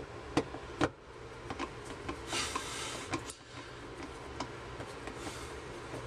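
A screwdriver clicking and knocking against the plastic parts and screws in the bottom of a dishwasher tub, with two sharper clicks in the first second and lighter ones after, and a short rustling hiss a little past two seconds in.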